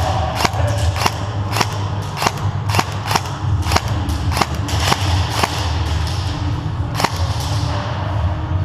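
Airsoft guns firing single shots at an irregular pace, roughly two or three sharp snaps a second, over a steady low rumble.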